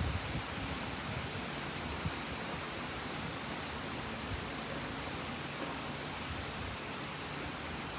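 Steady rain falling, an even hiss, with a faint low thump about two seconds in.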